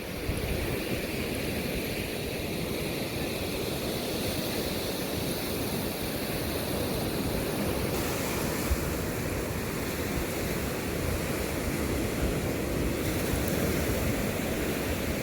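Ocean surf breaking and washing ashore in a steady rush, with wind buffeting the microphone.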